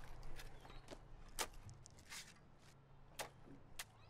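Quiet ambience: a low steady hum with about six faint, sharp clicks and taps scattered through it.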